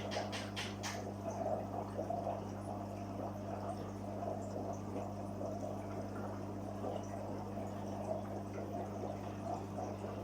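Water trickling and splashing steadily in a koi fry tank over the constant low hum of a water pump, with a few quick clicks in the first second.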